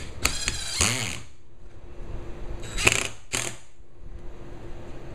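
Cordless power drill driving 1-inch screws through a 1x3 board into thin plywood, in three short bursts. The motor's pitch falls as the first burst stops about a second in.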